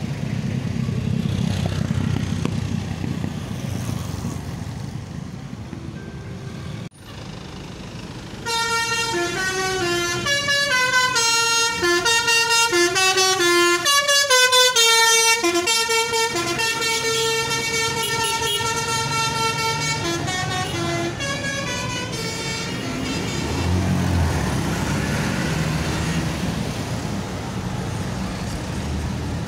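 A bus's Basuri telolet multi-tone horn playing its melody for about twelve seconds, the tones stepping up and down, over the rumble of the idling engine. The engine is heard on its own before and after the tune.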